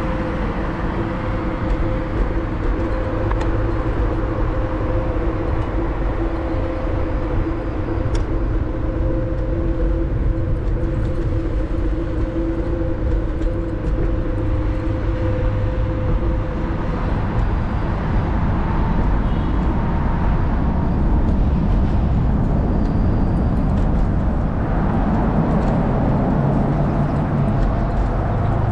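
Wind rushing over the microphone while riding a Varla Eagle One electric scooter, with a steady two-note motor whine that fades out about two-thirds of the way through and a whine rising in pitch near the end.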